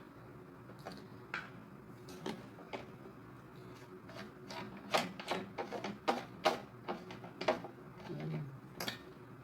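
Metal meat-grinder parts being handled, giving sharp clicks and light clinks, a few at first and then a quicker run of knocks from about halfway through.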